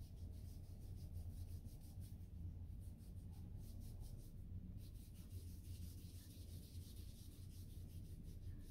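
Faint rubbing and swishing of a moist skincare peel pad being wiped over facial skin in repeated short strokes, over a low steady hum.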